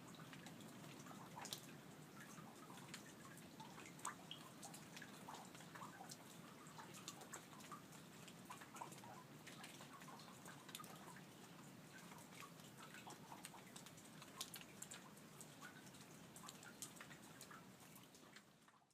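Faint rain dripping: irregular drops clicking over a low steady hiss, fading out near the end.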